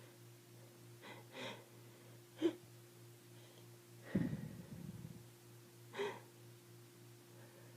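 Congested breathing of a person with a head cold: gasping in-breaths and snorts through the nose, the sharpest about two and a half seconds in and a longer, rougher one about four seconds in.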